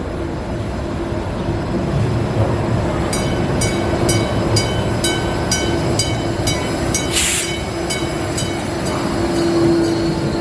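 Buffalo Metro Rail light rail car pulling into the station with a steady motor hum, its bell dinging about twice a second for several seconds, and a short hiss of air about two-thirds of the way through.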